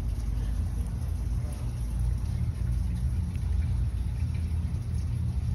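Steady low machine rumble, even in level throughout.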